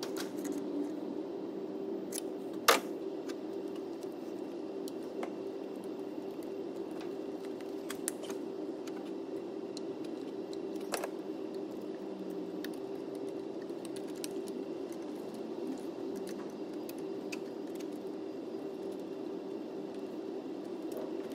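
Scattered light metallic clicks and taps from a spanner and fittings while high-pressure fuel pipe unions and injector connectors are refitted on a diesel engine. One sharper click comes about three seconds in, and a steady low hum runs underneath.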